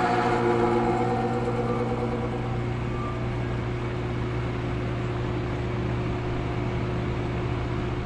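2011 Bryant Evolution heat pump outdoor unit running: a steady low hum with fan noise over it. Intro guitar music fades out in the first second or two.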